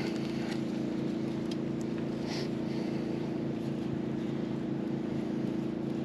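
A motor drones steadily at a constant pitch, with no change in speed.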